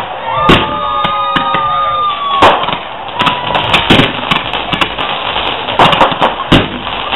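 Fireworks battery firing: sharp bangs and crackles in quick succession. A shrill whistling shell with several overtones runs through the first two seconds and ends in a loud bang, and a shorter whistle follows a second later.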